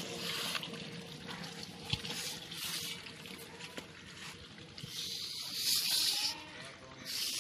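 Cloth rubbing around the rim of a large aluminium cooking pot in several uneven, hissing strokes, the longest about five seconds in.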